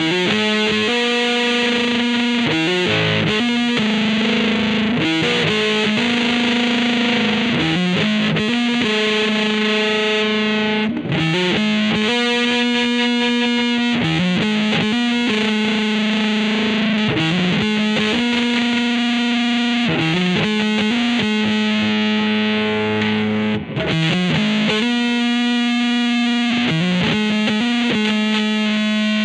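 A 1994 Mexican-made Fender Stratocaster electric guitar with GFS 'Jimi' reverse-mounted pickups, played through distortion. It plays a repeating phrase of long sustained notes, with bends that slide the pitch up and down every few seconds.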